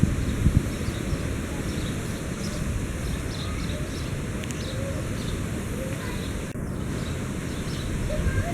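Wind buffeting the microphone, a low rumbling rush with a few stronger gusts near the start over a steady outdoor hiss.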